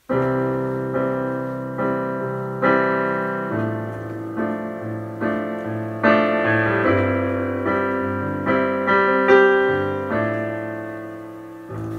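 Piano playing slow, sustained chords, a new chord struck about once a second and ringing down between strikes, growing softer near the end.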